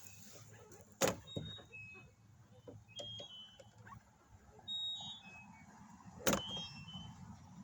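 Two sharp clicks, about a second in and again about six seconds in, from lockout tools being worked against a car door held open by an air wedge, with a few faint short high squeaks in between.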